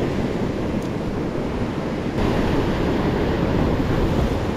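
Small surf washing up over sand and reef at the water's edge, with wind buffeting the microphone; the wash swells louder about two seconds in.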